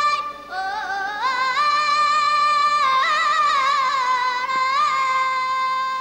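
A high voice singing a mugham phrase: after a held note breaks off, the voice climbs step by step with quick trilled throat ornaments (boğaz), flutters most busily in the middle, then settles onto a long held note.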